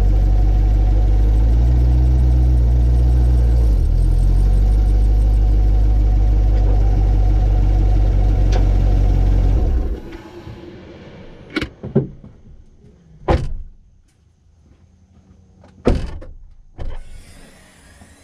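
C8 Corvette's V8 engine idling steadily, then shut off about ten seconds in. A handful of sharp clicks and clunks follow.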